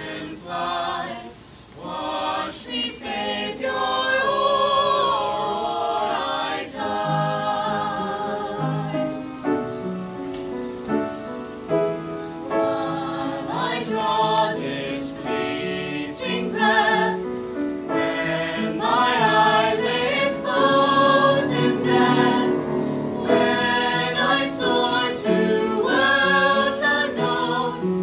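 A small mixed choir of men's and women's voices singing in harmony, with held notes and a continuous melodic line.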